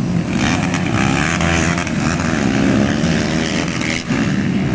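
Engines of several cubcross motorcycles racing on a dirt track, revving up and down as the pitch rises and falls, with a brief dip in loudness near the end.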